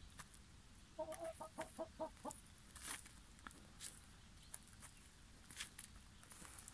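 Hen clucking softly: a quick run of about seven short clucks about a second in. Scattered faint clicks follow as the hen scratches and pecks in ash and gravel.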